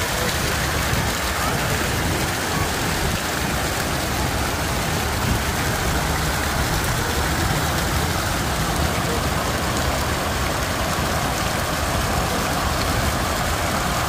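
Steady splashing of the Trocadéro fountains: streams from spouts on the basin wall pouring into the pool, with larger jets spraying further off.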